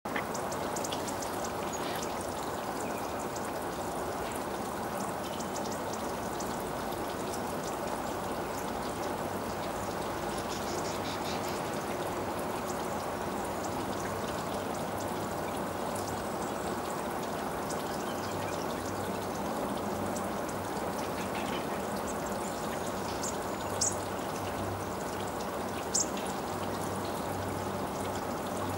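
A steady rushing of running water, like a stream. Near the end come two short, high-pitched bird chirps.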